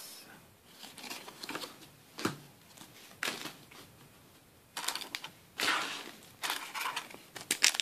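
Handling noise from trading cards and a foil booster pack being moved about: scattered light taps, clicks and short rustles, busier in the second half.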